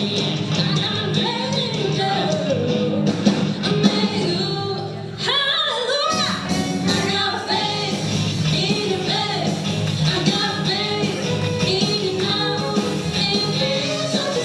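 Live rock band playing with a lead singer. The bass and drums drop out briefly about five seconds in, then the full band comes back in.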